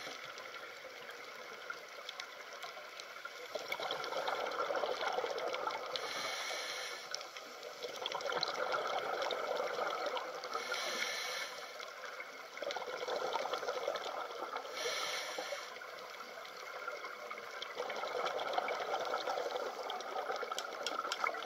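Underwater bubbling and rushing water noise that swells and eases every four to five seconds, with brief hissing bursts in between.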